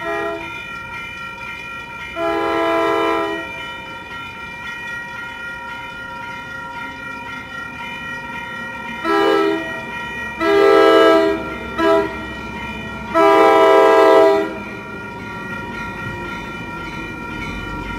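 An approaching Coaster commuter train sounds its horn in five blasts: a long one about two seconds in, then from about nine seconds a short, a long, a very short and a final long blast, as it nears the grade crossing. A grade-crossing bell rings steadily underneath.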